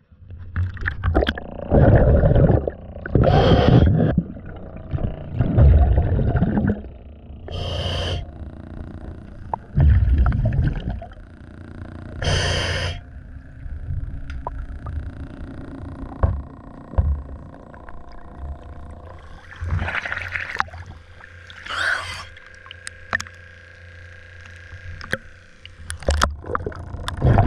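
A diver breathing through a regulator underwater: short high hissing inhales alternate with low bubbling exhales, a few seconds apart.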